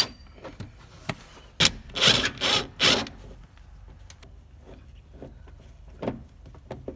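Hand work on a harness mounting bolt: a sharp click, then three quick rasping strokes of metal on metal, then a few faint knocks.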